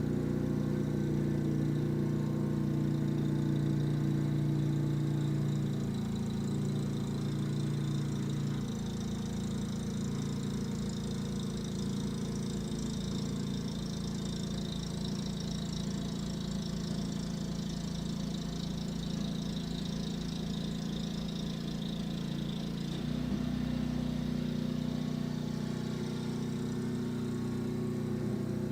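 Snow blower engine running steadily. Its note drops in two steps in the first nine seconds and rises again about 23 seconds in, with a hiss through the middle stretch.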